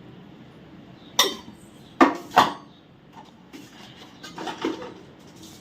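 A spoon knocking against a dish while spice powder is added: three sharp clinks in the first half, the second and third close together, then softer scraping and tapping.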